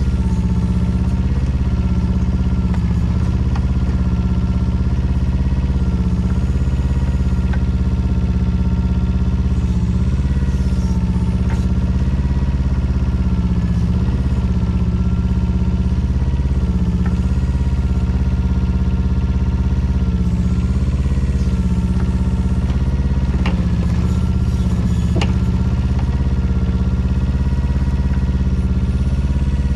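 The small Yanmar engine of a 2004 Daewoo Solar 010 mini excavator runs steadily at working speed. Its pitch dips and recovers every few seconds as the hydraulics take load while the arm digs. Two sharp knocks come about two-thirds of the way through.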